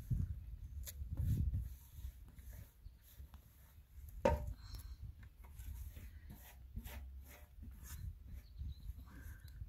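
Hands scraping and wiping chopped leafy greens off a stainless-steel tray into a metal pot of hot water: soft rubbing and many small scrapes, with one louder knock about four seconds in, over a steady low rumble.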